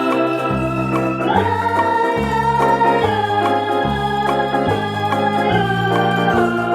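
Background instrumental music: held chords over a bass line that steps to a new note about once a second.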